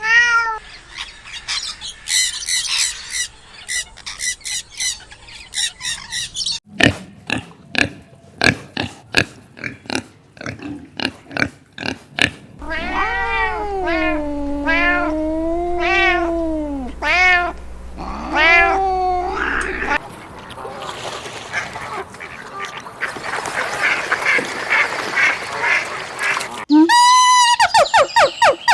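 A succession of different domestic and farm animal calls. Dense high chirping comes first, then a run of short sharp calls, then a long call that wavers up and down in pitch for several seconds, a noisy stretch of many overlapping calls, and quick quavering calls near the end.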